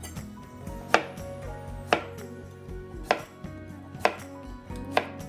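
Kitchen knife slicing through a delicata squash and striking the cutting board: five sharp chops about a second apart.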